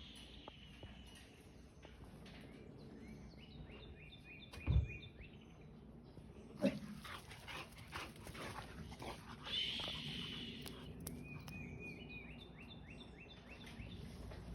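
An animal making two runs of quick, short, high squeaks that step down in pitch, with two short thumps in between.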